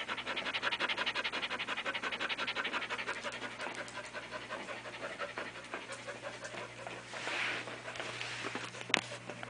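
Airedale terrier panting rapidly close to the microphone, about eight pants a second, growing fainter after a few seconds as the dog moves away. A single sharp click near the end.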